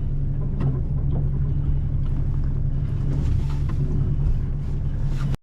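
Steady wind noise on the microphone over the sea rushing past a sailing yacht under way, with a few faint knocks; it cuts off suddenly at the end.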